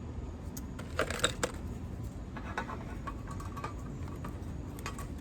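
Light plastic clicks and taps, with a cluster of sharper ones about a second in, as a piece of cut water-bottle plastic is pushed and wedged into the port hole of a plastic tube bird feeder.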